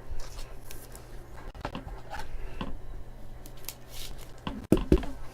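Trading cards and their packaging being handled: scattered short rustles, scrapes and taps, with a louder knock or two near the end.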